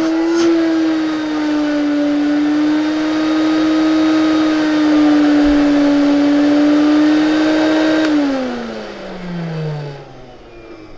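Lindhaus HF6 canister vacuum's motor running at a steady pitch, a motor that still has some bearing noise by the repairer's ear, with a click just after the start. About eight seconds in it spins down, its pitch falling away as it fades.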